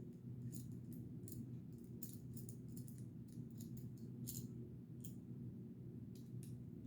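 Scattered light clicks and taps of small knife parts being handled while a pocket clip and its screw are fitted to a folding knife, over a steady low hum.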